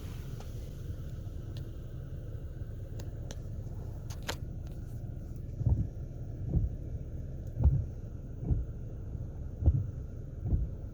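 Laser Wash 4000 touchless automatic car wash heard from inside the car: a steady low rumble of the wash machinery. About halfway through, a run of six dull thumps comes roughly once a second.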